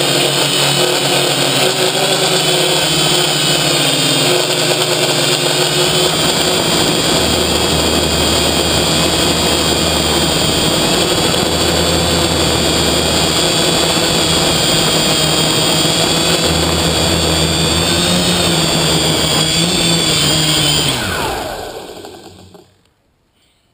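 Electric motors and propellers of an FPV multirotor whining steadily, heard through its onboard camera. About 21 seconds in, the pitch drops and the sound dies away as the motors spin down with the craft down on the sand.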